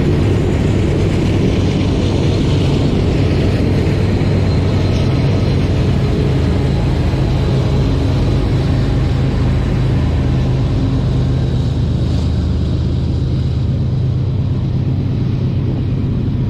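Diesel freight locomotives running steadily, a deep even engine hum under a wash of rolling noise.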